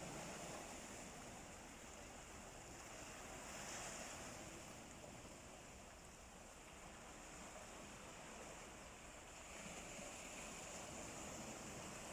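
Sea waves: a steady rush of surf that swells about four seconds in and again near ten seconds.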